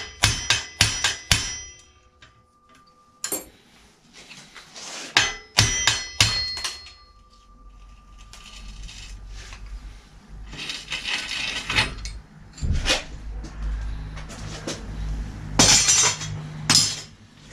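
Metal hand tools clinking and knocking against bicycle parts as a bicycle bearing is taken apart, a few of the knocks ringing briefly. In the second half a low, uneven rumble with scraping bursts.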